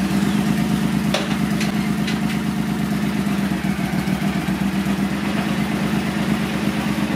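Triumph Thunderbird 1600's parallel-twin engine idling steadily just after being started, in gear on a stand with the rear wheel and drive belt turning. A couple of light clicks about one and two seconds in.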